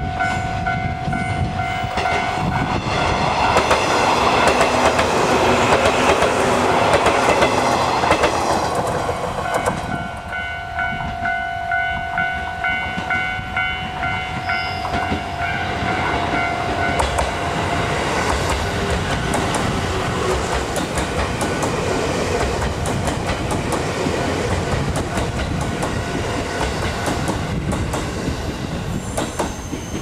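Electric train running past over a level crossing, with wheel clatter and rumble that is loudest a few seconds in and carries on to the end. The crossing's warning alarm rings over it and stops about halfway through.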